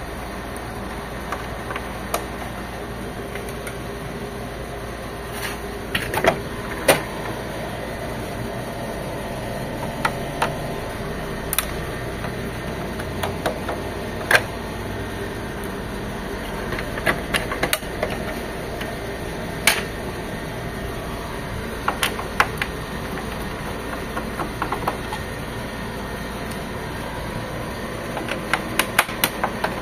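Scattered sharp clicks and knocks from parts of an HP Officejet 7612 printer's plastic casing and its screws being handled while it is taken apart, over a steady background hum. The clicks come singly or in short clusters, a few seconds apart.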